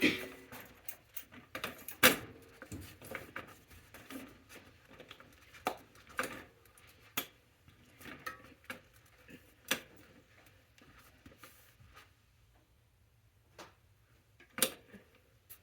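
Irregular clicks, clinks and knocks of hand tools and metal bike parts being handled, with the loudest knock about two seconds in. They thin out after about twelve seconds, with one more sharp knock near the end.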